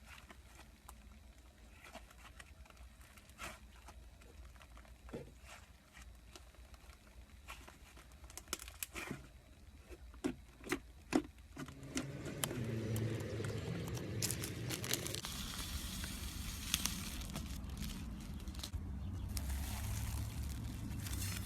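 Slime being handled and squeezed: soft scattered pops and clicks, a few sharper pops about ten seconds in, then from about twelve seconds a louder, continuous squishing and crackling.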